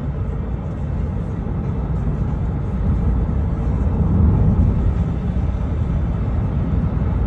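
Car driving along a road, heard from inside the cabin: a steady low rumble of engine and tyre noise that swells a little about halfway through.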